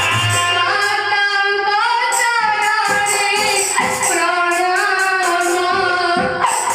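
A female voice singing a slow melody with long held notes that slide between pitches, over instrumental accompaniment with light drum strokes.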